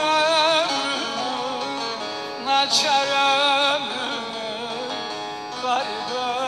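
A man singing a slow, ornamented melody in long held notes with a wavering vibrato, with an instrument accompanying underneath.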